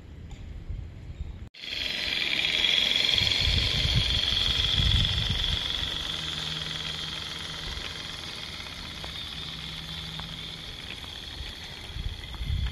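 Regner Class A Climax live-steam garden-railway locomotive passing close by, its steam hissing steadily. The hiss is loudest just after a sudden start and eases off as the engine draws away, with a few light clicks near the end. Before it, a low rumble of wind on the microphone.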